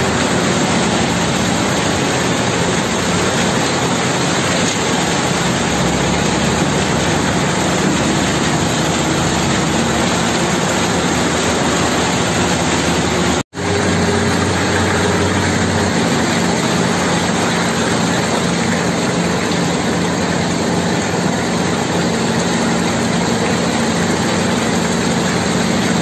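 Concrete mixer truck's diesel engine running steadily, turning the drum as wet concrete pours out down the chute and onto a tremie hopper grate. The sound breaks off briefly about halfway through.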